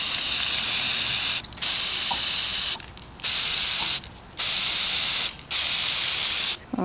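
Aerosol can of gold spray paint hissing in five spurts of about a second each, with short breaks between them as the nozzle is pressed and released.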